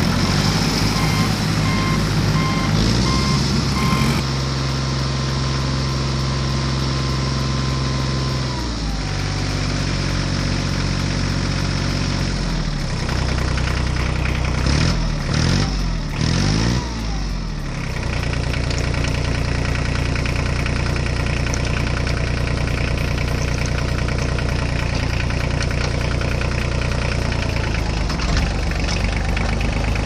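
Heavy vehicle's diesel engine running, its pitch dropping and rising a few times around the middle, with a reversing beeper sounding for the first few seconds.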